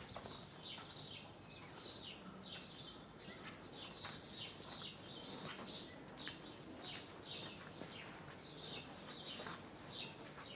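Small songbirds chirping over and over: short, high, falling chirps several times a second, fairly faint, over a low steady background hiss.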